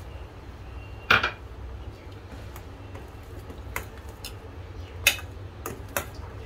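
Steel ladle clinking against a stainless steel saucepan while stirring simmering chutney: one sharp, ringing clink about a second in, the loudest, then several lighter clinks in the second half, over a low steady hum.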